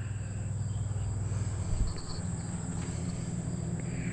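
Steady high-pitched insect trilling, typical of crickets, over a steady low hum, with one light knock near the middle.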